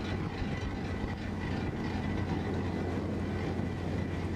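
Ferry Azalea-maru's engines and machinery running, a steady low drone with a faint high whine above it.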